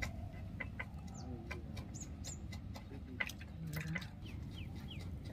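Birds chirping and clucking, with short falling chirps and many sharp clicks scattered through, over a steady low background rumble.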